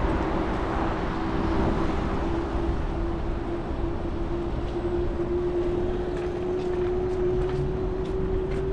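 Lime electric bike being ridden over a bumpy road: a steady whine from the assist motor, creeping slightly higher in pitch in the second half, over wind and rumbling road jolts.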